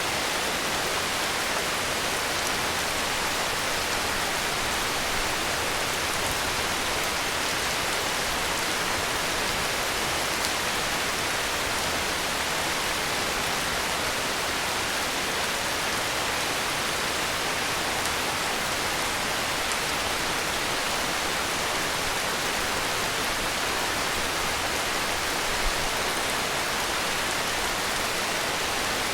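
Steady heavy rain: a dense, even hiss of rainfall with no breaks.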